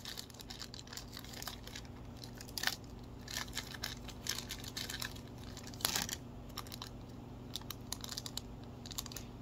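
Small clear plastic bag crinkling and rustling as it is handled and searched, with irregular sharp crackles, two louder ones about a third of the way in and past the middle.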